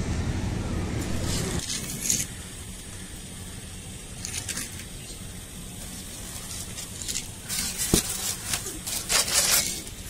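Pigeons pecking and scratching at grain on a concrete floor: scattered crackly taps and scrapes, busiest near the end, with one sharp click about eight seconds in. A low rumble runs underneath at first and stops about a second and a half in.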